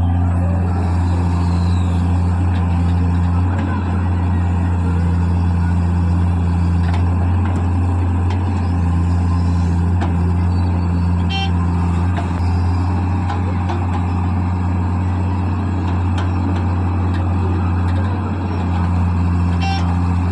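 Backhoe loader's diesel engine running steadily with a low, constant drone. Short pulsed beeps sound twice, once about halfway through and once near the end.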